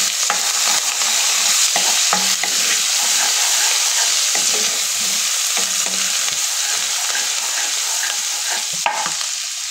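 Coarsely ground green chilli, garlic and ginger sizzling in hot oil in a wok, stirred with a spatula: a steady high sizzle with scattered scrapes of the spatula against the pan.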